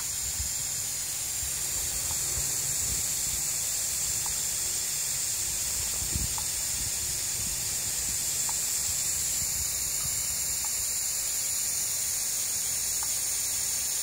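Fine water spray hissing steadily onto a wire birdcage as cockatiels are showered, with a few faint short ticks.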